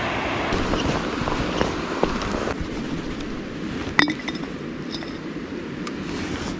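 Rushing river water for the first couple of seconds. Then, after a cut, a few sharp clinks and taps as a plastic jar of cured salmon eggs is handled for bait, the loudest about four seconds in.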